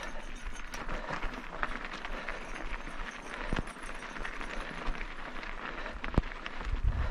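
Mountain bike riding over a rough dirt and gravel trail: a steady crunch of tyres with many small clicks and rattles from the bike. Wind rumbles on the microphone near the end.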